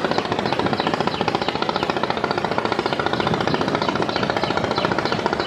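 A large boat diesel engine running steadily, with a rapid, even pulsing beat.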